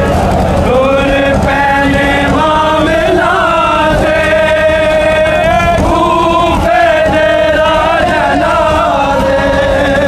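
Men chanting a Punjabi noha, a mourning lament, in a sung, wavering line that the crowd takes up, over the steady thuds of hands beating chests in matam.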